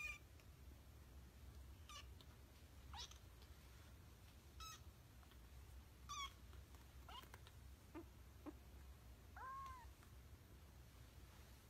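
Tiny kitten mewing faintly: about nine short, high-pitched mews spaced a second or so apart.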